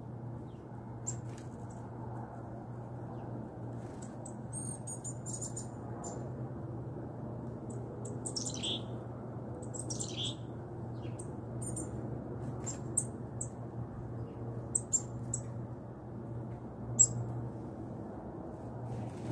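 Small songbirds chirping now and then, short high calls with a couple of quick falling notes in the middle, over a steady low hum. A few sharp clicks break in during the second half, the loudest one near the end.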